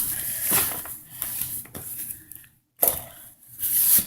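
Rustling and swishing of clothing and packaging being handled and pulled out of a box, with a few louder swishes: about half a second in, near three seconds, and just before the end.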